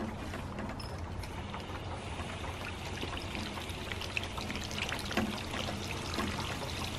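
Garden-hose water running through a 3D-printed Tesla turbine and trickling out of its unsealed housing and shaft onto wet pavement, a steady pouring sound.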